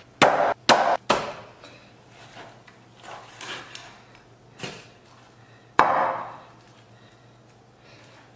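Meat cleaver chopping through a whole raw chicken onto a thick wooden chopping block: a quick run of heavy chops in the first second, then two more a few seconds apart.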